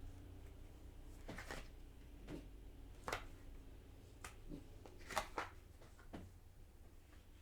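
Tarot cards being handled: about seven short card slides and slaps, spaced irregularly, over a low steady hum.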